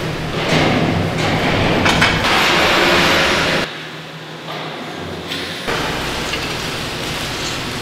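Metalworking shop noise: a steady low machine hum under loud rushing noise and metal clatter, dropping abruptly about halfway through and coming back about three-quarters of the way in.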